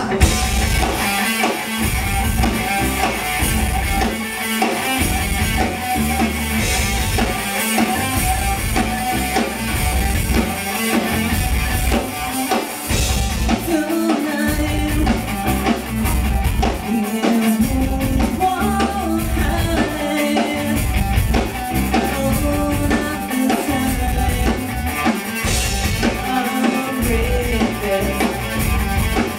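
Live rock band playing: electric guitars over a steadily pounding drum kit.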